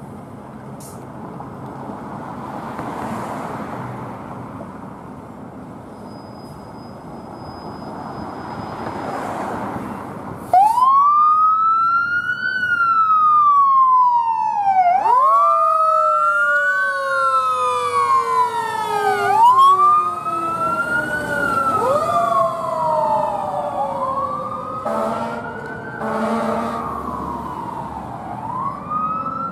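A 2017 Spartan Gladiator/Smeal fire engine's motor running as it pulls out. About ten seconds in its siren starts abruptly and wails, rising and falling about every four to five seconds, with a second, lower siren tone sliding slowly down underneath. Brief horn blasts come near the end.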